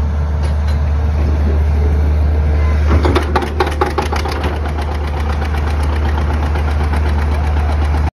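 John Deere 720's two-cylinder engine catching on a pop start: about three seconds in it fires with a few loud, uneven bangs, then runs with an even putt-putt beat. Before it catches there is only a steady low rumble.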